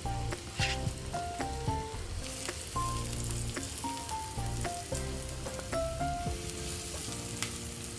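Chopped onion and garlic sizzling in hot oil in a frying pan while being stirred with a wooden spatula, with background music of held, stepping notes playing throughout.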